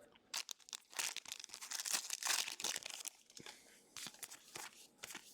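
Foil booster-pack wrapper crinkling and tearing as trading cards are handled: an irregular string of crackles and clicks, busiest in the middle.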